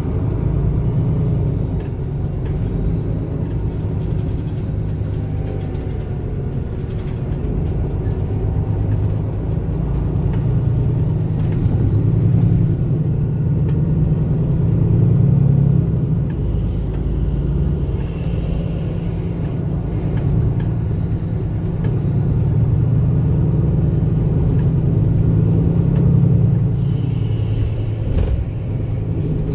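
MAN Lion's City A21 bus with a 360 hp Euro 6 diesel and ZF EcoLife six-speed automatic, driving along with a steady low engine rumble. Twice, a rising whine climbs as the bus pulls and breaks off, about halfway through and again near the end.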